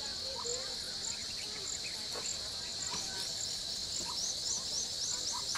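A steady, high-pitched chorus of insects, with a pulsing note above the drone and a quick run of faint chirps near the end.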